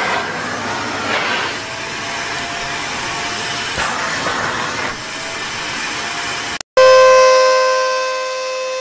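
Vacuum cleaner running with a steady rushing hiss of suction. After a brief break near the end, another vacuum cleaner's motor whines loud and steady, loudest as it comes in and easing over about a second.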